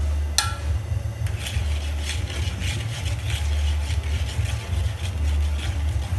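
A large aluminium cooking pot of water being stirred: a sharp metallic clink about half a second in, then irregular scraping strokes of the utensil against the pot, over a low steady rumble.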